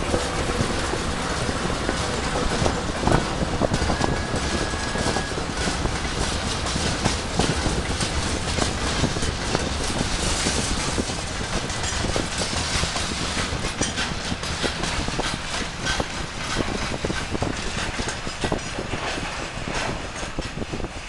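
Freight wagons of a shunting train behind a ChME3 diesel shunter rolling along the station tracks, wheels clicking and knocking over rail joints in a steady, dense rumble. A brief thin squeal comes about four seconds in.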